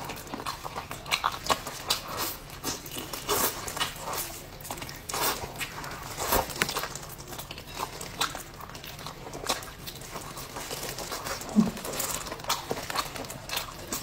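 A person eating close to the microphone: irregular wet chewing, smacking and crunching clicks.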